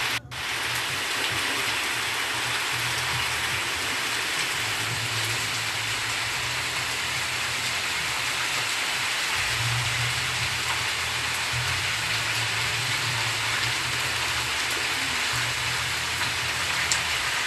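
Heavy rain pouring steadily onto leaves, walls and a paved lane: a dense, even hiss.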